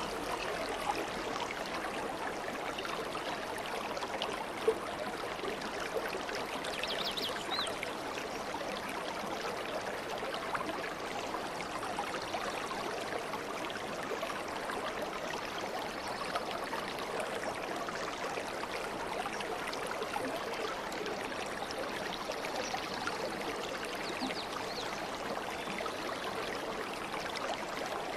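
Aquarium water trickling and bubbling steadily, as from the tank's filter outflow or air bubbler, with one short tick about five seconds in.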